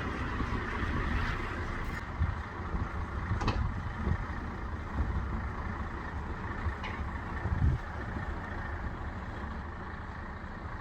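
Buses driving past: a low, uneven engine rumble over a steady hiss, with a couple of brief knocks.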